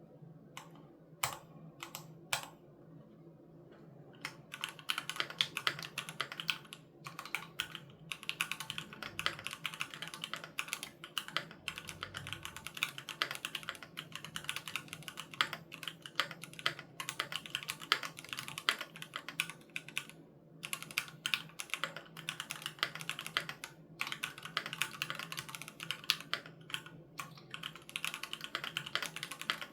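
Typing on a Keychron Q3 Knob mechanical keyboard with Gateron G Pro Red linear switches: a few single keystrokes, then a steady fast run of key clicks from about four seconds in, with brief pauses.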